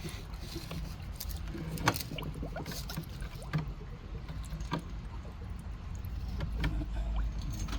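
Water sloshing in a bucket, with scattered light knocks and clicks as a small pump and its hose are handled in it.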